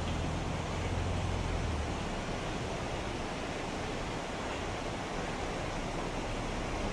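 Steady outdoor rushing noise, with a low hum underneath that stops about two seconds in.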